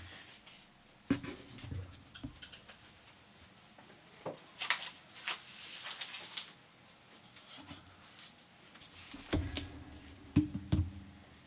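Handling noise at a meeting table: scattered knocks, clicks and rustles as a laptop and other things are set down and moved, with a few louder low thumps near the end.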